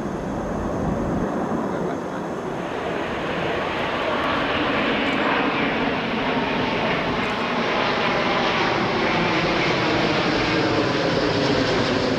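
Aircraft engines running, the sound growing louder and brighter from about two and a half seconds in.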